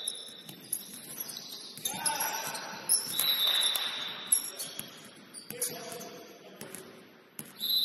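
Basketball game in a gym: sneakers squeaking on the hardwood court and a ball bouncing, with a few sharp knocks and short high squealing tones, the longest about three seconds in.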